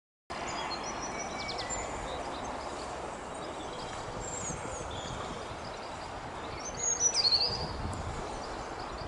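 Outdoor ambience: a steady background noise with small birds chirping, and a louder run of chirps about seven seconds in.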